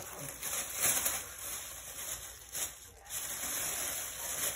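Thin plastic shopping bag rustling and crinkling in irregular bursts as a kitten shifts about inside it.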